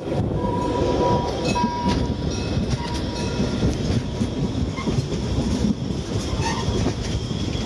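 Narrow-gauge passenger train running into a station, heard from aboard: a steady rumble of wheels and carriages on the track. A thin high squeal comes and goes in short stretches during the first three seconds.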